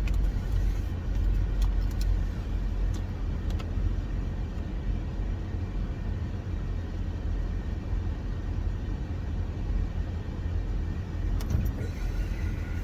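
Steady low rumble of a running car heard inside the cabin, with a few faint clicks and taps near the start and near the end.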